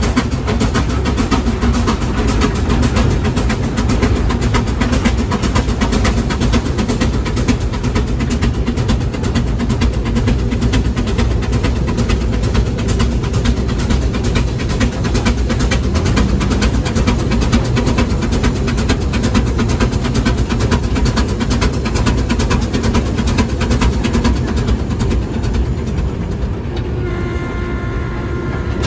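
Steam road locomotive running along the road, heard from its cab as a steady, fast mechanical clatter over a low rumble. Near the end a set of steady tones joins in.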